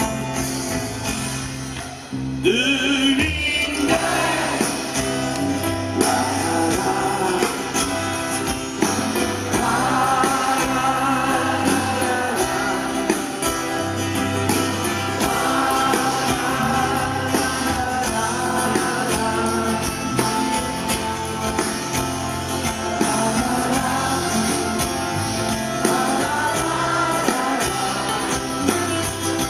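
Live band music played loud through a concert PA: several acoustic guitars strumming over drums, with singing on top. There is a brief dip about two seconds in, then the music carries on.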